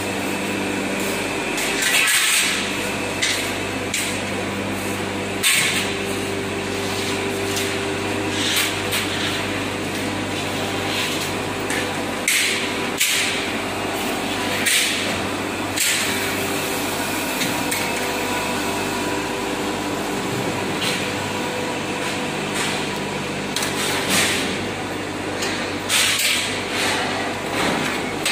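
Galvanized steel angle bars for transmission towers clanking as they are handled and set down: about a dozen sharp, irregular metallic knocks over a steady low machine hum.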